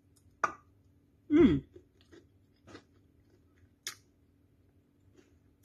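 A person tasting a spoonful of creamy chicken and sweet potato salad: soft mouth and chewing sounds with a few small spoon clicks, and a short hum that falls in pitch about a second and a half in.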